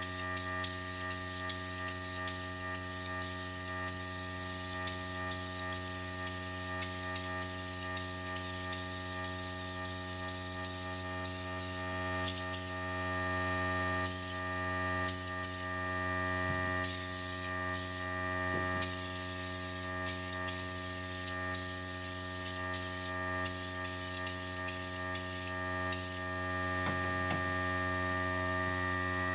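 Air-fed body deadener spray gun spraying bedliner in repeated hissing bursts, some short and some several seconds long, stopping a few seconds before the end. Underneath is a steady electrical hum.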